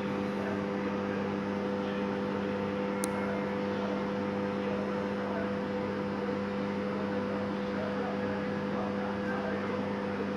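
Steady electrical hum of a battery charger charging locomotive batteries: an even drone made of a few fixed tones. A single brief high tick about three seconds in.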